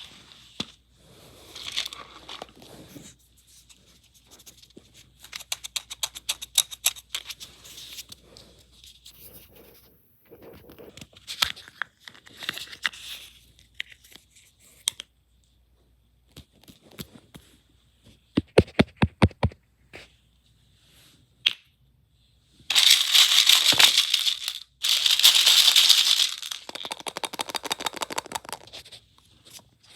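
Surprise eggs being unwrapped and opened: wrappers crinkling and tearing, with small plastic parts rattling and clicking in quick runs. The loudest stretch of crinkling and tearing comes a little past three quarters of the way through.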